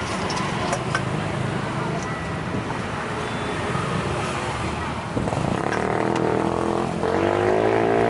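Street traffic with a motor vehicle's engine hum that comes in about five seconds in, rises in pitch near the end, then holds. A few light clinks of a spoon against a steel mixing bowl are heard early on.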